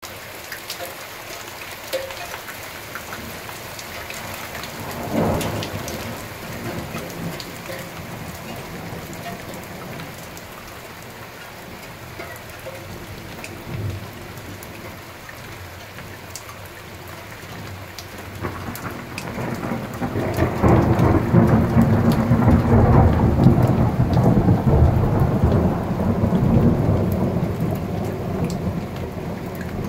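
Steady rain falling through a thunderstorm. About five seconds in comes a short burst of thunder. From about two-thirds of the way through, a long rolling rumble of thunder builds, is loudest for several seconds, then slowly dies away.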